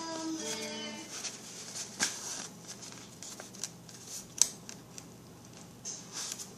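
Hand-sewing hair wefts onto a wig cap: scattered light clicks and snips with soft rustling of thread and hair. A short bit of music ends about a second in.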